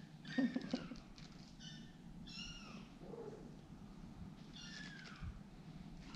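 Kittens mewing: about four short, high-pitched mews, each falling in pitch, the loudest about half a second in.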